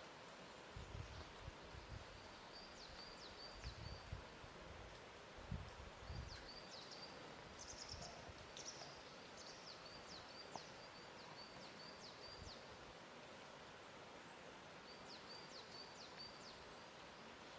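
Faint lakeside ambience: a steady hiss with a few soft low thuds of water lapping at the shore, and runs of quick, high chirps from a small bird that come and go.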